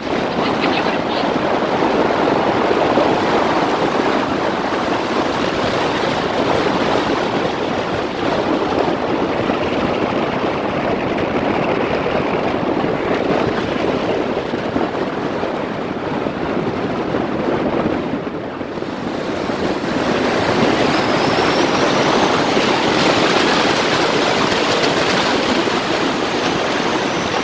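A turbocharged car under hard acceleration, a continuous loud rush of wind and road noise. About two-thirds of the way in, the rush eases briefly, then builds again with a faint high whistle rising over it: the turbo spooling.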